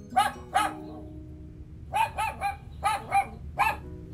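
A dog barking in short, high-pitched yaps: two near the start, then a quicker run of about six from about two seconds in. Soft background music plays underneath.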